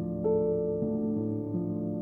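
Soft, slow background music led by piano or electric piano, held notes and chords with a new note about a quarter second in.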